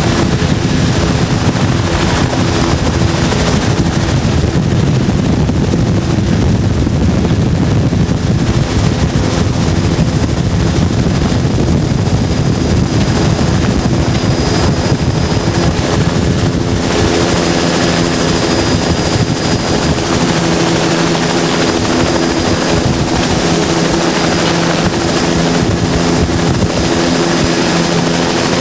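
Boat engine running steadily under way over a loud rushing noise. The rush eases about two-thirds of the way through, leaving the engine's hum clearer.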